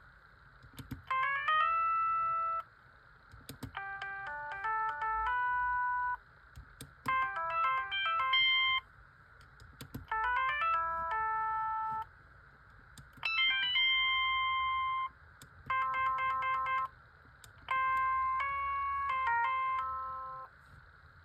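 Siemens A55 mobile phone playing a ringtone through its small loudspeaker: short electronic melodic phrases, each a quick run of notes ending on a held note, with brief pauses between them.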